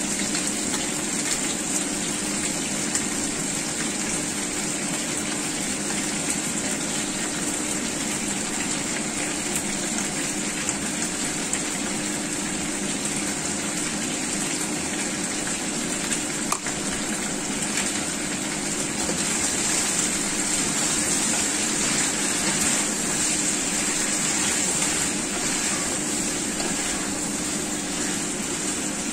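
Chicken wings and potato cubes sizzling in hot oil in a frying pan, a steady hiss that grows a little louder past the middle, over a steady low hum.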